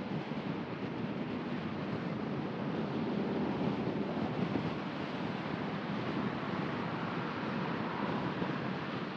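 Steady road noise of a car driving along a city avenue: tyre roar on the pavement and wind rush, swelling slightly in the middle.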